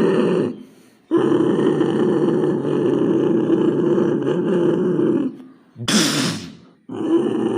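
Recorded heavy-rain sound effect played back, a loud steady hiss that cuts out briefly twice. A short, harsher burst comes about six seconds in.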